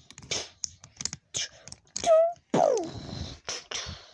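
A child making mouth sound effects for a toy fight: a quick run of short hissing 'pssh' blasts and clicks, a loud short vocal burst about two seconds in, then a falling-pitch vocal zap, imitating Iron Man's Unibeam blast.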